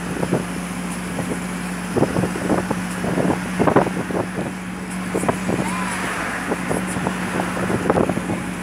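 Tourist road train on the move: a steady engine drone, with frequent irregular knocks and rattles from the open carriage jolting along the road.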